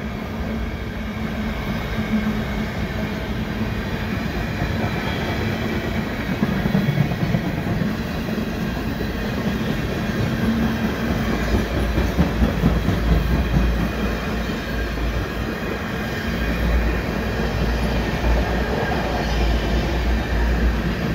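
Freight train's cars, tank cars among them, rolling past at speed: a steady rumble and clatter of steel wheels on the rails. The low rumble grows heavier about halfway through.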